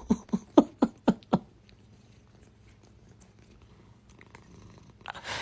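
A domestic cat making a quick run of about six short chirping meows, roughly four a second, then falling quiet; a brief breathy noise comes near the end.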